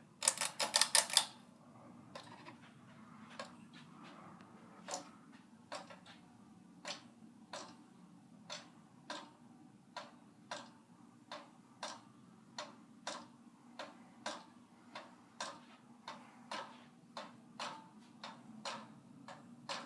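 Monte Carlo Designer Supreme II ceiling fan running on low speed, ticking evenly about twice a second over a faint motor hum. The owner calls it very noisy and thinks the fan has some issues. There is a short clatter right at the start.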